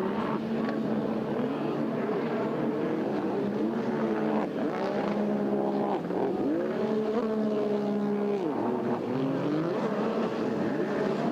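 Racing jet ski engines revving up and down as the craft run the course, several engine notes rising and falling over a steady drone.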